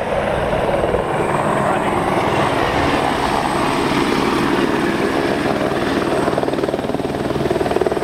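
A helicopter flying low and setting down: its turbine and rotor run steadily and loudly, with the rapid, even chop of the main rotor blades.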